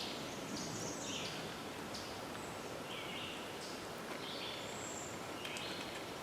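Birds calling in short, separate phrases, one after another, over a steady outdoor background noise.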